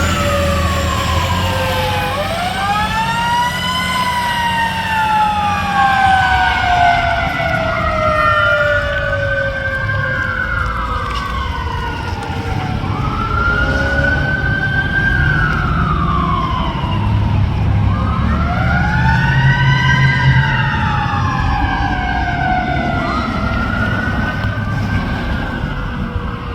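Fire truck sirens: a mechanical Q siren winding up and coasting down again and again, overlapping with other siren wails, over the truck's low engine rumble.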